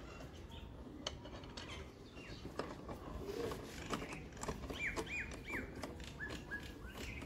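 Faint metallic clicks and knocks of a socket wrench turning the bolts of a motorcycle's rear grab rail. Past the middle a bird chirps three times in quick succession, then twice more.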